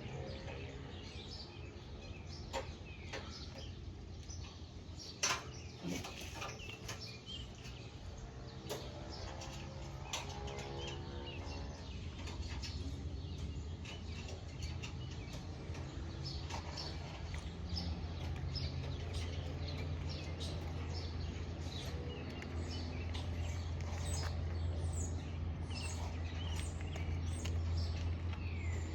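Birds chirping over a steady low hum that slowly grows louder, with scattered clicks and knocks, the loudest about five seconds in.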